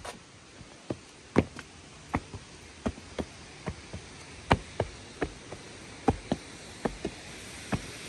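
Irregular sharp taps, about two a second, over the faint steady rush of a waterfall.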